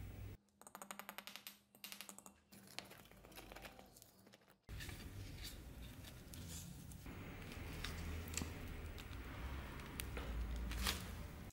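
Small handling noises at a workbench: a run of quick, evenly repeated scratching strokes near the start, then, after a sudden cut, a steady low rumble with scattered light clicks and taps.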